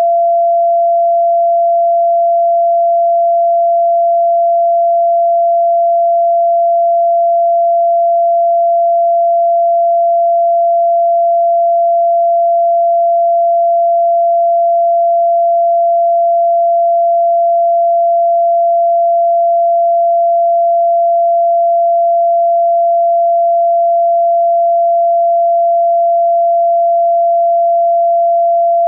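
Pure electronic sine tone at 682.85 Hz, the F note of the fourth octave in a scale tuned to A = 432 Hz. It is held at one steady pitch and level without change.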